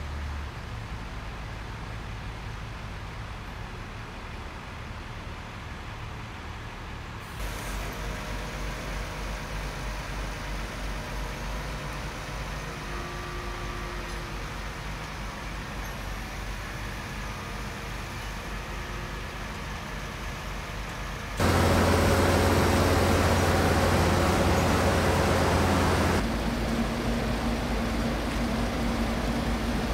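Bucket truck's engine running steadily to power the boom, with no voices; the sound steps up a little about seven seconds in and is louder for about five seconds past the middle.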